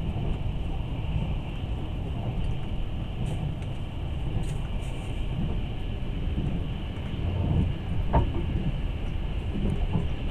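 Passenger train running on the rails, heard from aboard: a steady low rumble of wheels and carriage, with a few sharp knocks about eight seconds in.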